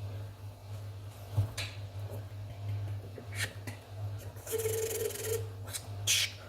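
Intermittent rubbing and rustling, in short scattered bursts, over a steady low electrical hum.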